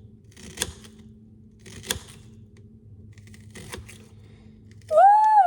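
Kitchen knife chopping an onion on a cutting board: three sharp chops about a second apart, over a low steady hum. Just before the end, a short, loud vocal note that rises and falls.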